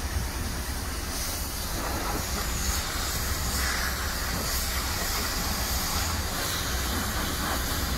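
High-pressure car-wash wand spraying water onto a car: a steady hiss with a low rumble underneath.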